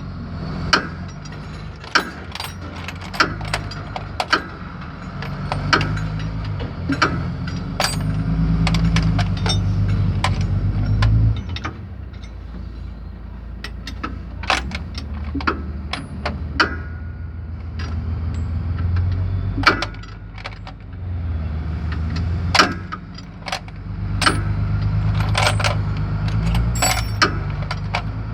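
Metal hand tools and parts clinking and tapping against metal, with many sharp clicks at irregular intervals. Under them runs a low mechanical drone that swells and fades several times.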